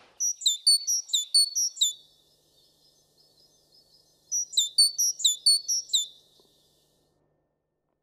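A small songbird singing two phrases of about eight quick, high notes each, every note falling in pitch, the second phrase about four seconds in.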